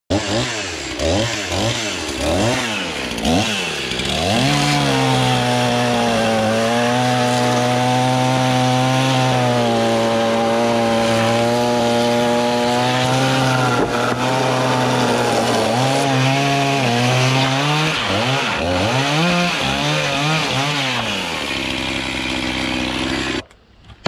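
Two-stroke gas chainsaw revved up and down several times, then held at high speed for about ten seconds while cutting through stacked sawmill slab cutoffs, then revved up and down again. The sound cuts off suddenly near the end.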